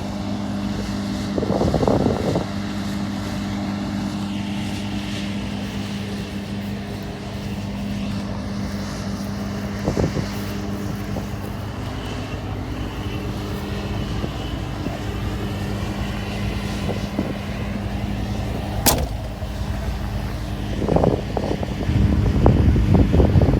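Engine of farm harvest machinery running steadily at a constant speed, with a few brief louder noisy rushes, a sharp click late on, and louder noise building near the end.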